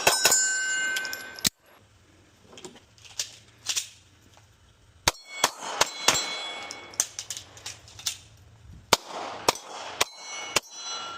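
Rapid gunshots in quick groups, about a dozen in all, with steel targets ringing after hits. A ring from the previous hit fades and cuts off about a second and a half in, followed by a short pause before the shooting resumes.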